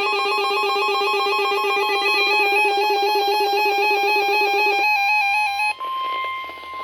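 An electronic tone trilling rapidly back and forth between two close pitches, steady for about five and a half seconds before it cuts off. It is followed by a steady high beep-like tone over radio hiss.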